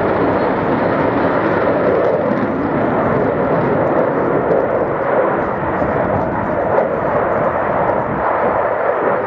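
Loud, steady aircraft engine noise of a display aircraft passing the crowd line.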